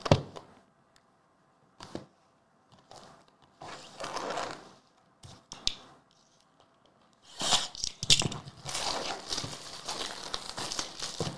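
Clear plastic shrink wrap being torn and crumpled off a sealed box of baseball cards: a few light taps and rustles of the boxes being handled, then a dense crinkling from about seven seconds in.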